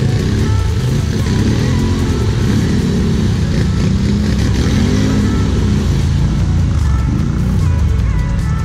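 Quad bike engines running, with revs rising and falling several times, under background music.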